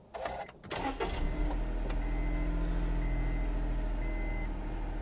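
2013 Honda N-Box G's 658 cc three-cylinder petrol engine started, catching within about a second and then idling steadily. From about two seconds in, a seatbelt-warning chime beeps at an even pace because the driver's seatbelt is not fastened.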